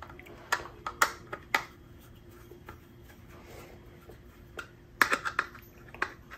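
Small sharp clicks and taps of a hand screwdriver and screw hardware against a Kydex holster shell as a belt clip is screwed on. There are several clicks in the first second and a half, then a quiet stretch, then another quick cluster about five seconds in.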